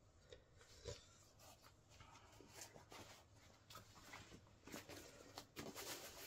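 Faint rustling and crackling of a Wellensteyn Schneezauber jacket's fabric being handled, in short irregular scrapes and ticks that grow denser and a little louder near the end.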